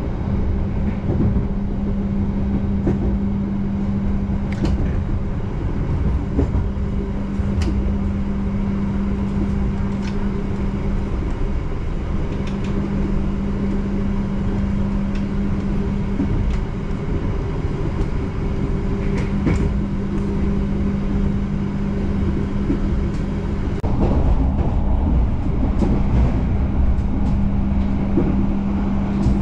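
Steady rumble of a moving Argo Bromo Anggrek passenger train heard from inside the carriage, with a constant low hum and scattered light clicks of the wheels on the rails. It grows louder about three quarters of the way through.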